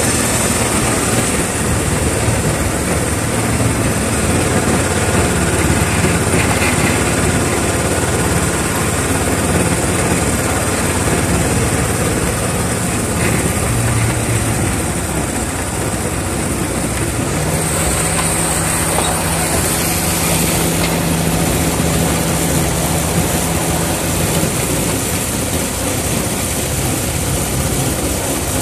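Ride-on miniature class 31 locomotive running along the line, heard from its cab: a steady mix of engine and running noise. A steady low hum comes in about two-thirds of the way through and fades out again several seconds later.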